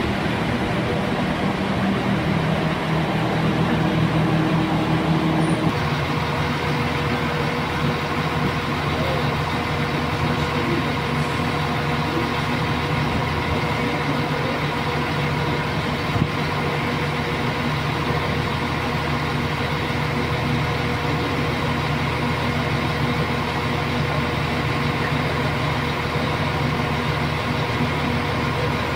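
Northern Ireland Railways Class 4000 diesel multiple units' engines running, a steady diesel drone with a strong low note that drops away about six seconds in. A single brief knock comes about two-thirds of the way through.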